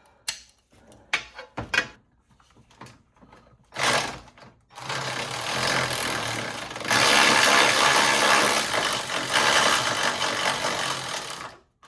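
A few metallic clicks of a socket tool on the 12 mm battery-tray bolt, then from about four seconds in a dense, steady rattle of the tool spinning the bolt out. It gets louder about seven seconds in and stops just before the end.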